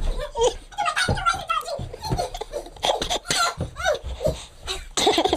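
People laughing, with bits of talk among them.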